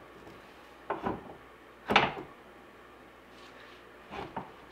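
Clunks and rattles of a surface conditioning belt being fitted onto a 2x72 belt grinder's wheels and tension arm, the grinder not running: a few short knocks, the loudest about two seconds in.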